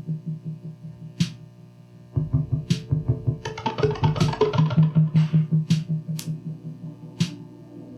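Live electronic music: a rapidly pulsing low synth tone with sharp, sparse clicks over it, thinning out and coming back about two seconds in, then thinning again near the end.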